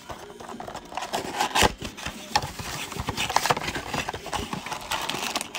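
Cardboard Panini Contenders Football blaster box being handled and opened: irregular rubbing, scraping and crackling of cardboard and paper, with one sharper, louder noise about a second and a half in.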